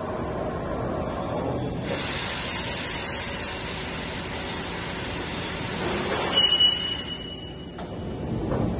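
CNC machining center running, with a steady hiss of spray that starts suddenly about two seconds in. A short high whine sounds around six seconds in, followed by a single click.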